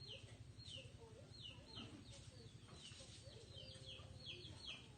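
Faint background chirping of birds: short, high, falling peeps, several a second, over a low steady rumble.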